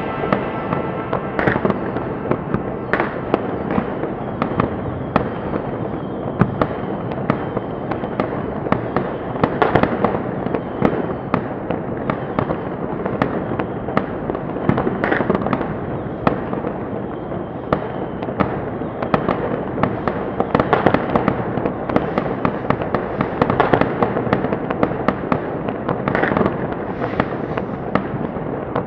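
Many fireworks going off at once: a continuous rapid barrage of bangs and crackles, with louder reports scattered irregularly throughout.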